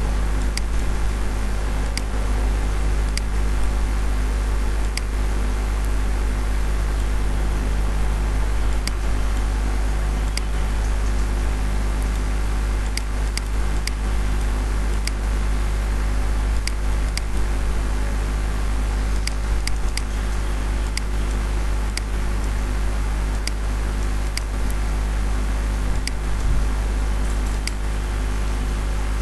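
Steady, loud electrical or fan hum with a low drone, and short sharp clicks every second or so: computer mouse clicks as pen-tool anchor points are placed.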